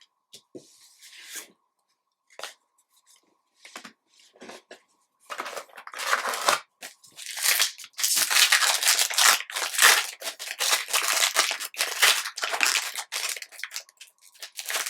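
A few light clicks of trading cards being handled, then from about five seconds in a long run of crinkly tearing and crumpling as a card pack's wrapper is torn open.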